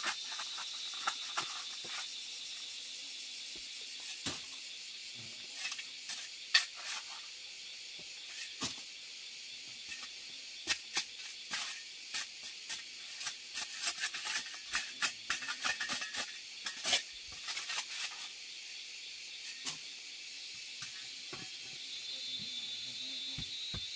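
Hand tools digging and scraping into a packed dirt floor: a hoe, then a knife blade, making short sharp scrapes and knocks that come thickest in the middle. A steady high hiss runs underneath throughout.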